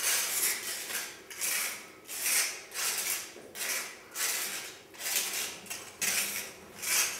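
Rough scraping strokes against a crumbling plaster wall, repeated steadily a little more than once a second, each swelling and fading.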